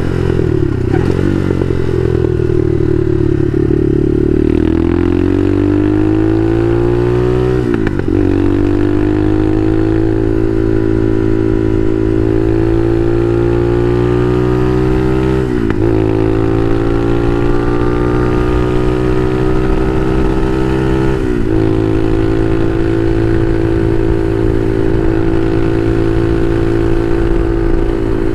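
Bashan Motomax 250 supermoto engine under way, pulling up through the gears: its pitch climbs steadily, with a brief drop at each of about four shifts.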